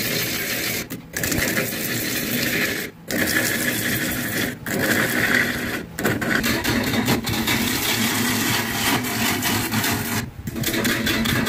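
Wood lathe turning a large wooden blank while a turning gouge cuts it, shavings tearing off in a steady rough rattle. The sound breaks off briefly several times.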